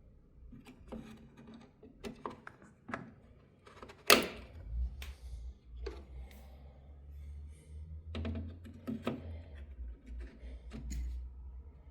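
Small clicks and knocks of hard parts being handled, with one loud thunk about four seconds in, over a low hum.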